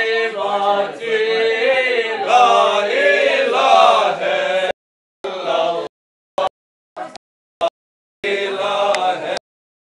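Men's voices chanting together in a melodic, gliding line. From about the middle on, the sound cuts out abruptly several times, leaving only short fragments of voice.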